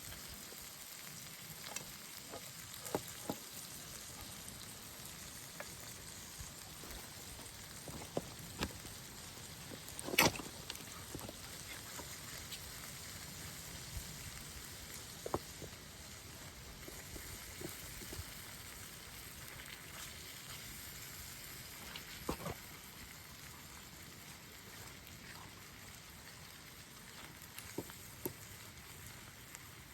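Food sizzling in a pan over a campfire: a steady sizzle with scattered sharp pops, the loudest about ten seconds in.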